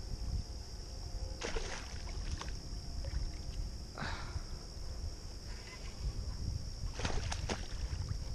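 Wind rumbling on the microphone over a steady high insect drone, with a few short splashes and rustles about one and a half, four and seven seconds in as a hooked northern pike thrashes at the grassy shoreline.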